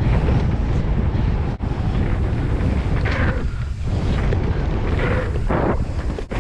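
Steady rumble of wind buffeting the microphone and mountain-bike tyres running over a dirt trail at speed, with two brief hissing rushes about three and five seconds in.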